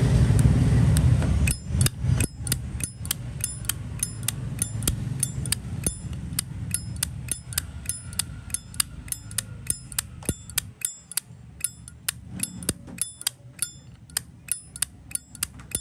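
Zippo lighter lid flipped open and snapped shut over and over, each clack with a bright metallic ring, about three a second, to show off the lighter's sound. A low rumble of traffic fades out in the first second and a half.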